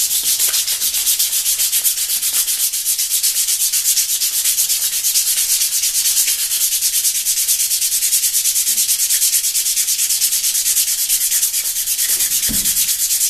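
Emery cloth being rubbed quickly back and forth over the rusted cast-iron body of a hand plane, a steady stroke-by-stroke scrubbing hiss as the rust is cleaned off. A brief low bump near the end.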